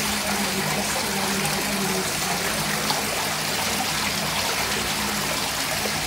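Water trickling steadily in an aquarium tank, with a low steady hum underneath.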